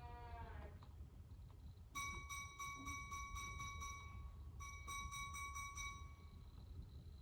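Electronic beeping: a steady high tone pulsed rapidly in two runs of about two seconds each, like an alarm or timer going off. In the first second, the end of a high call that falls in pitch.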